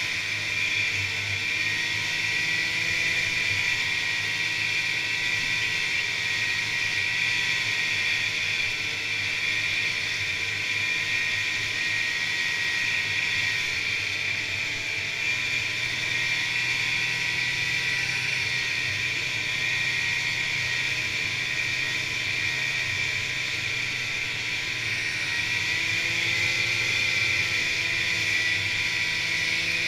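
Polaris Indy snowmobile's two-stroke engine running at a steady trail-riding speed, with an even, unbroken drone and a steady high whine over it.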